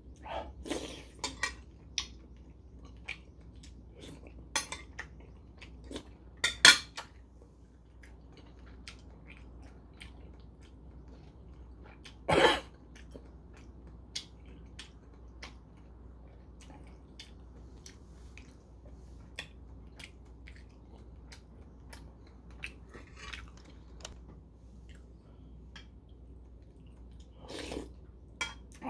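Close-up eating sounds: chewing with scattered small clicks, and a metal spoon clinking against a porcelain soup bowl now and then. The loudest clinks and scrapes come a few seconds in and near the middle.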